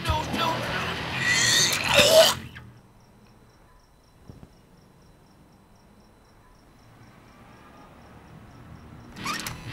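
A loud, shrill scream that rises to a peak and cuts off suddenly a little over two seconds in. A quiet stretch follows, with a brief sharp burst of sound near the end.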